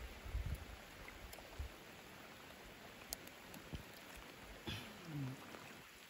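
Light rain falling on a lake, a faint steady hiss, with a few low knocks and splashes as a fish and gill net are handled at the side of a wooden boat in the first second. A short falling vocal sound about five seconds in.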